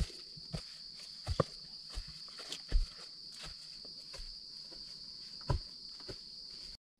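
Irregular footsteps and scrambling on soil and dry leaf litter as a person climbs a steep earth bank, with scattered crunches and thumps. A steady high-pitched insect drone runs underneath.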